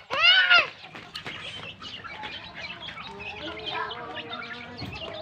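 Flock of native chickens with chicks: one loud call that rises and falls in pitch just after the start, then a steady chatter of soft clucks and chick peeps.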